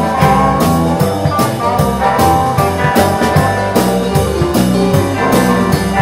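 Rock band playing: electric guitars, bass and drum kit, with the drums keeping a steady beat.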